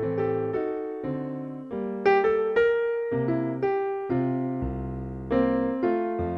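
Background music: solo piano playing a slow melody over chords, a new note or chord struck about every half second, each ringing and fading.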